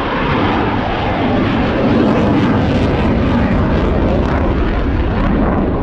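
Fixed-wing aircraft flying past, its engine noise loud and steady throughout.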